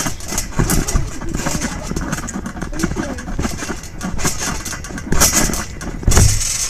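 Trampoline mat thumping and rustling as children bounce barefoot on it, with a heavier thump about six seconds in.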